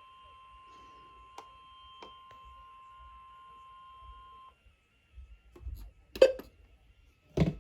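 A weather radio's steady warning alarm tone, a single pitch near 1 kHz, cuts off about four and a half seconds in. A few loud, sharp knocks or clicks follow near the end.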